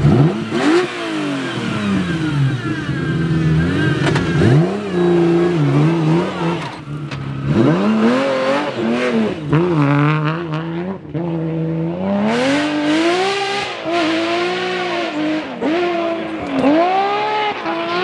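BMW 3 Series rally cars at full throttle on a gravel stage. The engine note climbs through the revs and drops sharply several times at gear changes and lifts, over a clatter of loose gravel.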